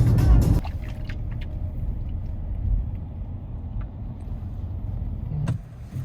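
A car driving, a steady low rumble of engine and road noise. Music cuts off about half a second in, and there is a sharp click near the end.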